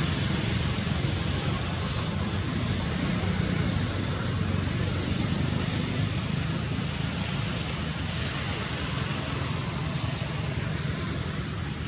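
Steady outdoor background noise: a low rumble with an even hiss over it, easing off slightly near the end.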